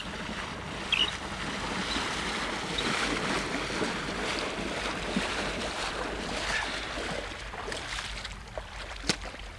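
A person wading fast through knee-deep cold lake water, legs splashing with each stride, over small waves lapping. Wind rumbles on the microphone throughout.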